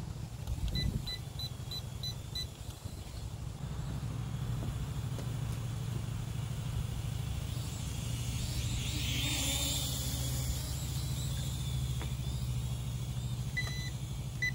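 Q10 mini FPV quadcopter's propellers whirring, growing louder and then fading again around the middle as it flies near, over a low steady rumble. A quick string of six short electronic beeps about a second in, and two more beeps near the end.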